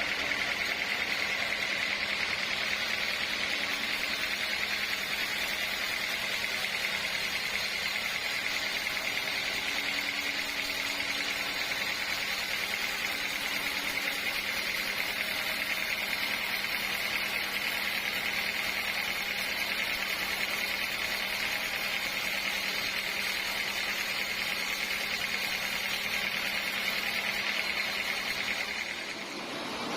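Sawmill saw running steadily: a constant mechanical noise with a high, even whine. It drops away about a second before the end.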